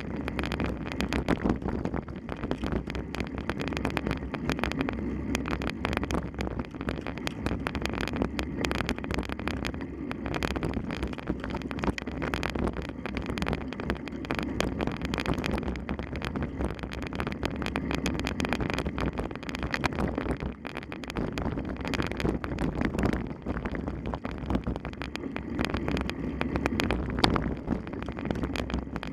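Steady rumbling wind noise on the microphone, with continual rattling clicks throughout.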